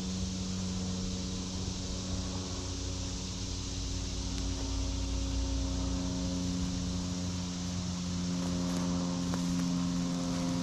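A distant engine drones steadily, its pitch shifting slowly, over an even outdoor hiss.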